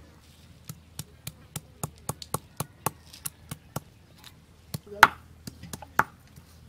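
Stone pestle pounding sliced onions on a grooved stone grinding slab (shil-pata), crushing them for a curry paste. Sharp stone-on-stone knocks come about three or four a second, with the loudest strike about five seconds in.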